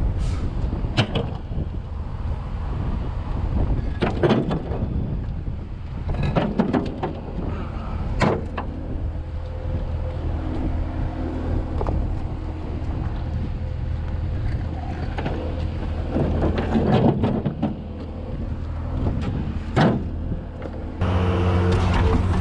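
Skid steer engine running, with scattered clanks and knocks, about seven of them sharp, as the machine works broken concrete.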